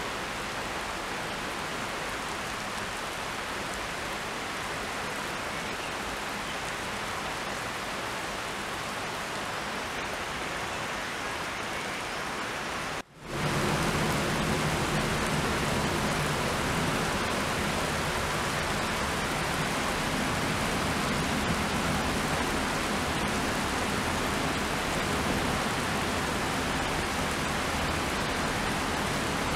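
Steady rain falling, a constant hiss. About halfway through it drops out for an instant and comes back louder and fuller as heavy rain.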